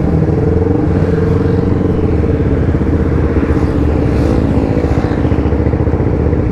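Sport motorcycle engine running steadily at low revs as the bike rolls slowly and pulls up.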